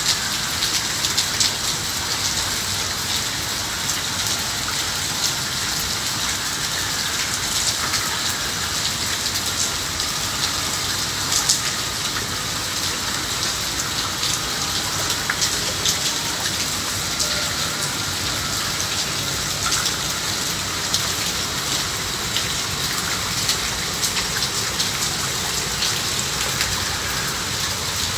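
Heavy rain pouring steadily onto flooded paved ground and puddles: a constant hiss dotted with many small ticks of falling drops.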